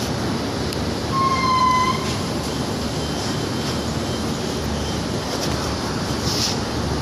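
Steady wind rushing over the microphone, with a single short horn toot, one steady high note, about a second in.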